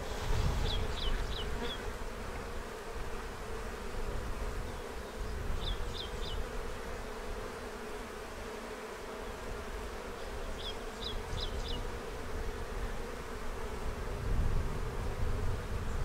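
A colony of honeybees humming steadily around an opened hive as a frame of bees is held out. The hum is calm, which the beekeepers take as a sign that there is a queen in the hive. Short high chirps come in quick groups of three or four, three times, and a low rumble rises near the start and again near the end.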